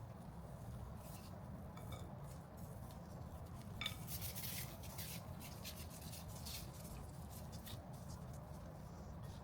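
Light rubbing and scraping of kitchen utensils against dishware, with one sharp clink just before four seconds in and a busier patch of scraping right after it.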